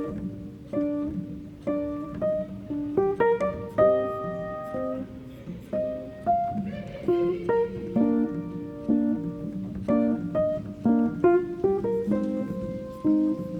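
Background music: plucked guitar notes, with piano, played as a melody.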